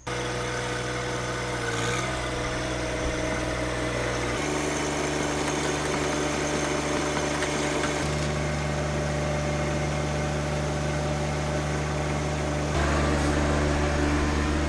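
John Deere 1025R compact tractor's three-cylinder diesel engine running steadily close by. Its note steps up about four seconds in and again about eight seconds in, and it gets louder a second or two before the end.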